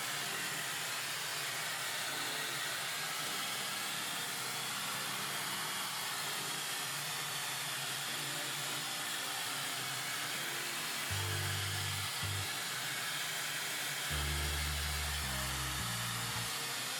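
Mifen ionic hair dryer with a high-speed motor blowing steadily, a constant airy rush. Low bass notes of background music come in about eleven seconds in.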